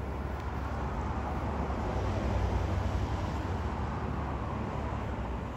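Diesel locomotives of an approaching loaded coal train heard from far off: a low, steady rumble.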